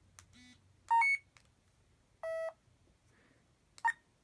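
Handheld currency reader in tone mode sounding its electronic beeps to identify a banknote's denomination: a short two-pitch chirp about a second in, a steady lower tone lasting a third of a second a little later, and another short beep near the end.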